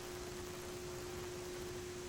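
Steady radio static hiss with one steady low hum tone running through it.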